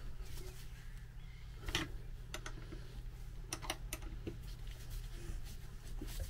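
Screwdriver tightening the screws on a wiper motor housing: small irregular clicks and ticks of the tool and screws, a few at a time, over a faint steady low hum.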